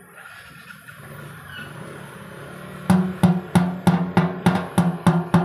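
Repeated hammer blows on a hollow sheet-metal tank, about three a second, each ringing briefly, starting about three seconds in after a low steady hiss.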